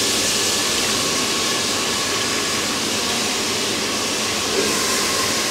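Food sizzling in hot oil in a metal pot on a gas burner: a steady, even hiss.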